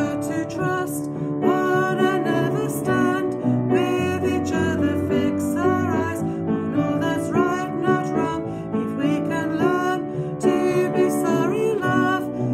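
A woman singing a song solo while accompanying herself on the piano.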